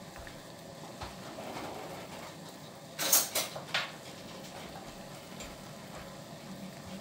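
Water boiling in a pan on the stove, a steady hiss, with a short clatter of kitchenware about three seconds in.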